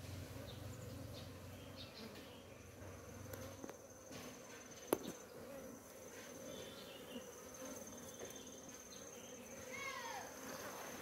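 A colony of honeybees buzzing steadily as the hive is opened and a brood comb frame is lifted out, with a single sharp click about five seconds in.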